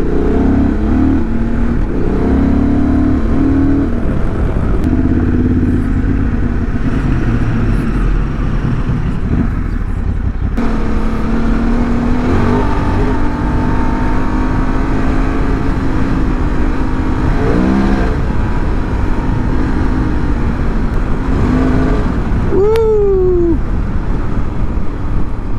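Honda Transalp 750's parallel-twin engine running under way, its pitch shifting up and down with throttle over a steady low rush of wind and road noise. A little before the end comes one quick rev that rises and falls.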